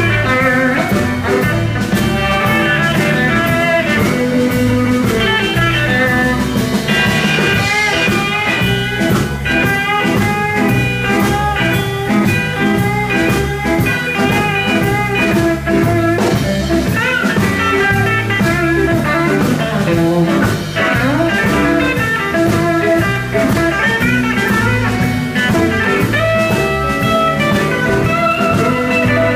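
Live blues band playing an instrumental passage: electric guitars over electric bass and a drum kit, with the guitar bending notes up and down.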